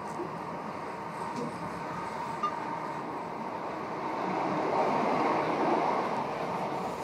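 Electric commuter train running at speed, heard from inside the carriage: a steady rumble of wheels on rails that swells louder about four seconds in, with a single sharp click about halfway.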